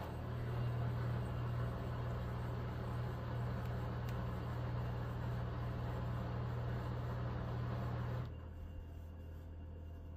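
Haier HLC1700AXS washer-dryer combo's drum motor running with a steady hum while the drum turns the load, then cutting out about eight seconds in. This is the machine struggling with an unbalanced load in its final spin.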